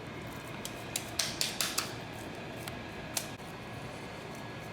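Kitchen utensils clicking and tapping: a quick run of about five sharp clicks a second in, then one more a little after three seconds.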